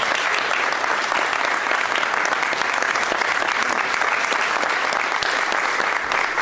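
Dense, steady applause from a large crowd of people clapping, marking the end of a speech.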